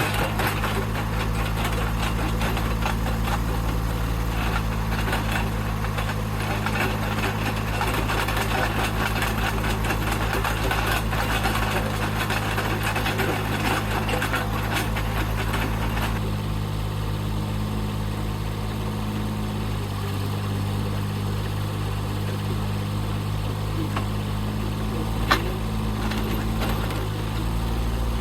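Engine of a powered post-hole auger running steadily, with the rough grinding of the auger boring into rocky ground for about the first sixteen seconds, then the engine running on alone. A single sharp click comes near the end.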